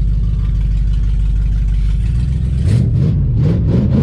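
The 1969 AMC Rebel's 290 V8 runs steadily, heard from inside the cabin. About two-thirds of the way in it is revved up and down several times in quick succession.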